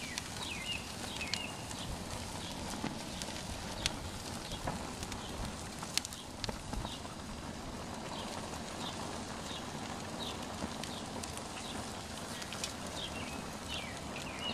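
Paper poster burning on a gas grill: a steady rushing hiss with a few sharp crackles, about four and six seconds in. Birds chirp over it in short, high, repeated calls.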